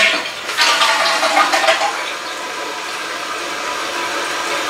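Newly installed toilet flushing: a loud gush of water through the bowl for about two seconds, then settling into the steadier hiss of the tank refilling. This is the test flush that checks that the chain and flapper valve work.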